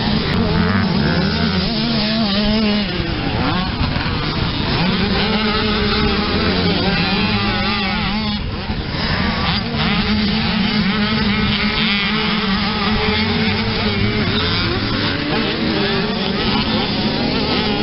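Youth motocross bikes' engines revving hard and dropping off as they take the corners, with several bikes heard at once so the engine notes overlap and waver up and down.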